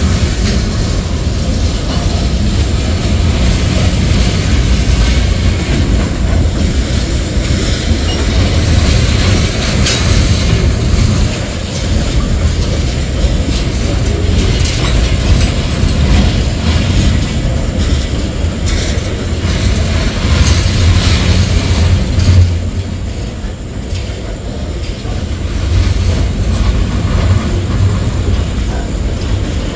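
Tank cars and covered hoppers of a mixed freight train rolling past close by: a steady heavy rumble of steel wheels on rail, with clicking over the rail joints.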